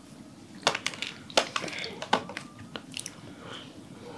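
Close-up chewing of a crunchy snack: a series of sharp, irregular crunches.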